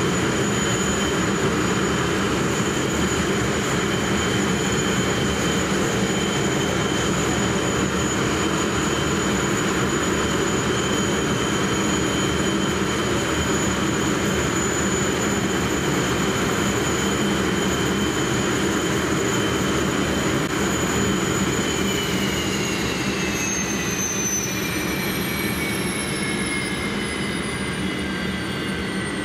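English Electric Lightning F6's twin Rolls-Royce Avon turbojets running, a steady loud rush with a high whine. About three-quarters of the way through, the whine starts falling steadily in pitch as the engines spool down.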